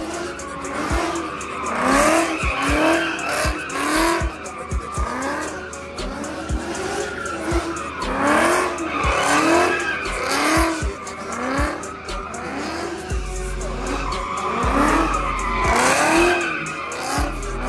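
A car drifting with tyres squealing and skidding, while its engine is revved up and down about twice a second to keep the rear wheels spinning.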